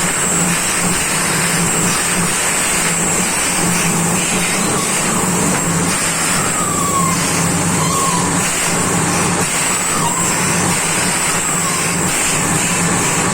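Compressor-powered borewell drilling rig running steadily: a constant engine hum under a continuous high hiss of compressed air. A few faint short falling squeaks come and go in the second half.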